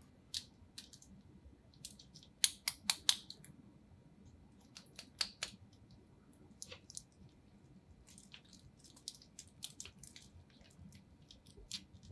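Light, scattered clicks and taps of watch bracelets and clasps being handled, with a short run of louder clicks about two and a half seconds in.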